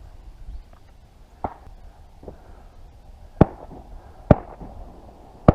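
Shotgun shots: two fainter pops, then three loud sharp reports about a second apart in the second half.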